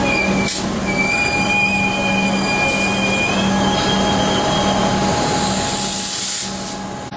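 Suburban electric train running along a station platform: a steady hum and rumble, with a high-pitched metallic squeal from about a second in until nearly five seconds. The noise eases off slightly near the end.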